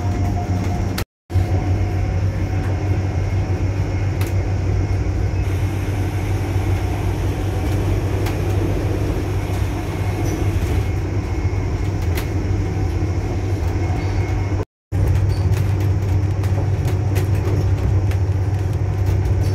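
Class 180 Adelante diesel multiple unit, each coach powered by a Cummins diesel engine with hydraulic transmission, running with a steady low drone and a few faint clicks. The sound drops out briefly twice, about a second in and near 15 seconds in.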